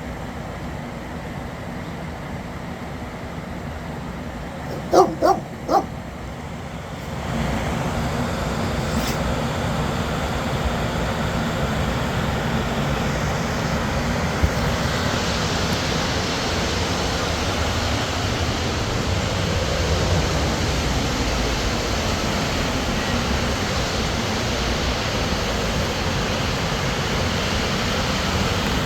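Three short, loud animal calls in quick succession about five seconds in. From about seven seconds a steady rushing noise sets in and continues.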